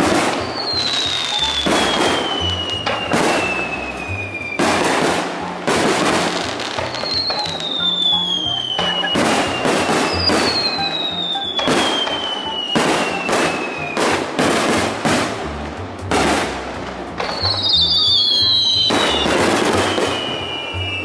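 Aerial fireworks shells bursting in quick succession, a boom every second or two. Several long whistles fall slowly in pitch over a few seconds each, and two of them overlap near the end.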